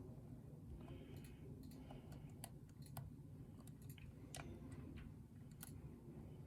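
Faint, irregular metallic clicks of a lock pick working the pins of a challenge lock during single-pin picking, about a dozen sharp ticks spread unevenly, over a low steady hum.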